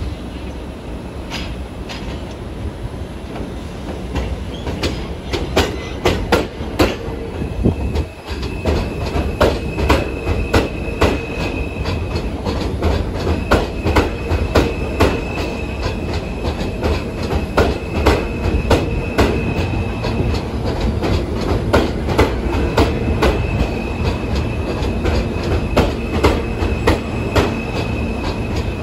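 R160 subway train rolling slowly over switches and rail joints into an elevated station, its wheels clacking in irregular clicks over a steady rumble. A high steady squeal comes in about eight seconds in and keeps breaking off and returning.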